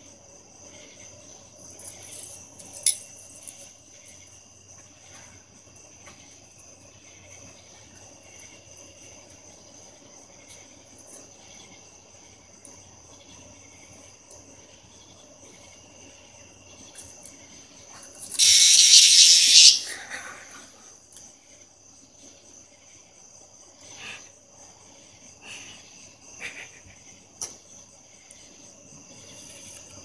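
A cicada giving a loud, harsh buzz for about a second and a half, some eighteen seconds in, as a dog mouths it: a distress squawk. A few short, weaker buzzes follow, over a steady, high insect trill.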